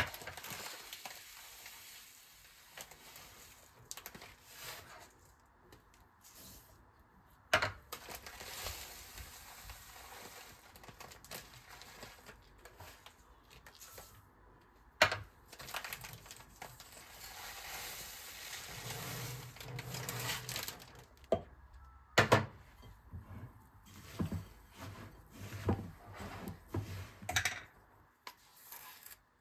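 Food sizzling in oil in a frying pan, the hiss coming and going, with about four sharp clinks of a utensil against the pan or dishes.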